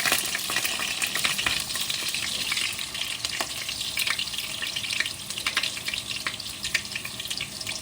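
Chicken frying in oil in a small pan: a steady sizzle full of sharp crackles and spits of fat, easing a little toward the end.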